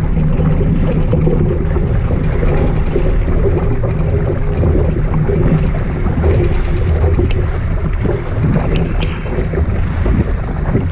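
Wind buffeting the microphone over water rushing and splashing along the hull of a Laser 2 sailing dinghy moving at speed. A couple of short sharp ticks come near the end.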